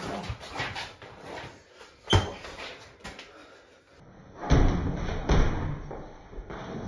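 Boxing gloves thudding as punches land in sparring, mixed with footwork on a wooden floor. A sharp hit comes about two seconds in, then two heavier thuds a little under a second apart past the middle.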